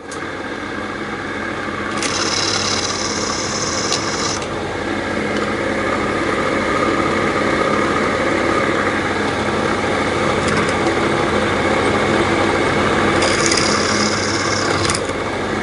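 Bench drill press motor running steadily while its bit slowly drills out the brass rivets of a Harley-Davidson Panhead clutch hub lining. A higher, scraping hiss of the bit cutting the rivet comes about two seconds in and again near the end.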